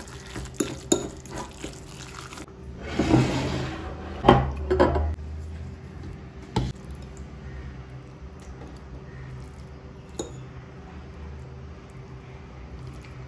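Metal fork clinking and scraping against a glass mixing bowl while a thick tuna salad is stirred. About four to seven seconds in come a few sharp clinks of metal on glass, followed by quieter handling as the mixture is pressed into pastry cones.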